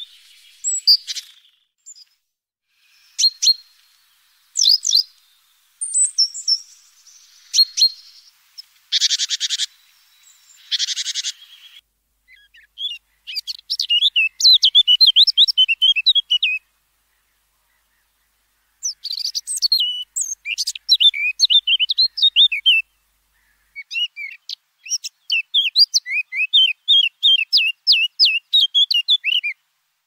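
Great tit calling: scattered short notes and two buzzy churrs, about nine and eleven seconds in. From about twelve seconds in, a Eurasian blackcap sings three fast, varied warbling phrases of a few seconds each.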